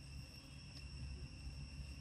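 Insects droning steadily in a high, even tone, over a low rumble.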